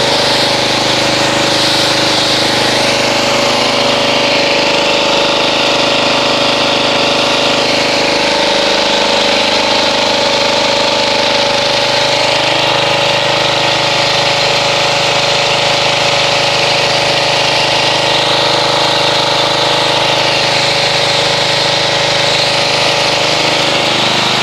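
Pressure washer running steadily, its water jet spraying and hissing as it rinses soap foam off a car; the pump's note wavers a little in pitch partway through.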